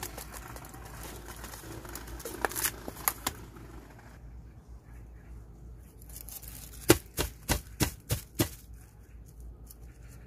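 Hands working potting soil around a freshly repotted succulent in a pot wrapped in a plastic bag, with soft rustling. About seven seconds in comes a quick run of about six sharp taps.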